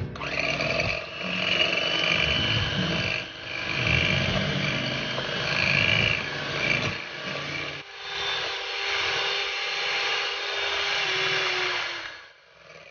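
Electric hand mixer running, its beaters whipping cream in a glass bowl until it thickens. The motor's tone changes about eight seconds in, and it switches off near the end.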